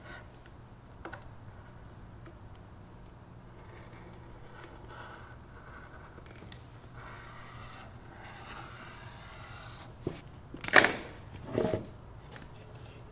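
A utility-knife blade scraping through the rubber seal along the edge of a VW vent wing glass as it trims off the excess, faint and rough. Near the end three sharp knocks, the second loudest.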